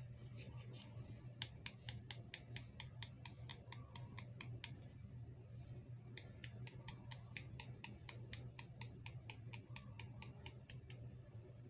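A rapid, even run of small clicks, about five a second, stopping for about a second and a half midway and then resuming, over a steady low hum.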